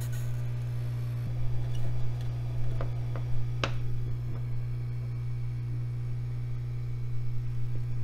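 A few light clicks and ticks as a plastic ISA slot connector is wiggled loose from a motherboard after its corroded solder joints are heated, the sharpest about three and a half seconds in. A steady low hum runs underneath.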